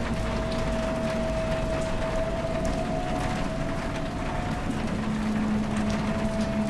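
Ambient soundtrack of held drone tones over a steady rain-like hiss: a higher tone sustained throughout, and a low tone that drops out at the start and returns about five seconds in.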